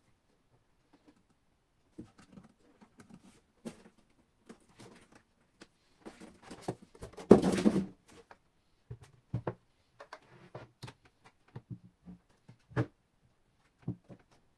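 Handling noises from assembling a computer monitor: scattered clicks and knocks of plastic parts and the stand, with one louder noisy burst lasting under a second about halfway through and a few sharper knocks near the end.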